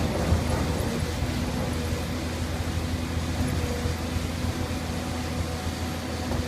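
LiuGong hydraulic excavator's diesel engine running steadily under work load, a low, even hum with a steady overtone.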